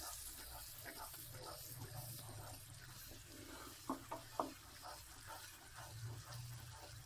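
Thick sugar syrup bubbling at a full boil in a metal pot, stirred with a wooden spatula that scrapes the pot bottom; three light knocks of the spatula on the pot about four seconds in. The syrup is at the thick, bubbly stage just before it turns to caramel.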